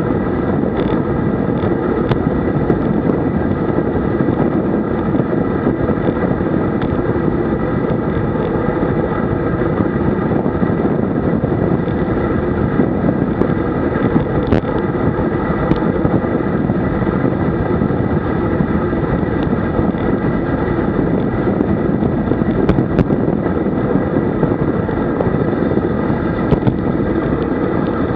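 Steady wind rush over the microphone of a handlebar-mounted camera on a road bike descending at about 60 km/h.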